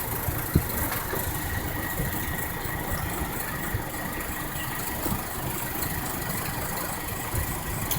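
A vehicle engine idling steadily, with a faint steady whine above it and a few brief low thumps.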